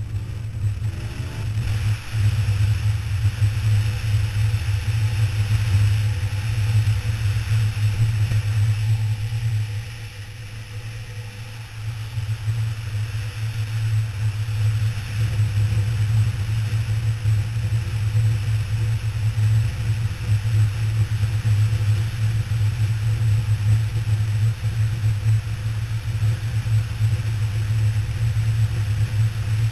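KTM 990 Adventure R motorcycle riding at road speed, heard from a helmet-mounted camera as a steady rush of wind over the microphone with the V-twin engine beneath it. The sound eases off for a few seconds about ten seconds in, then comes back.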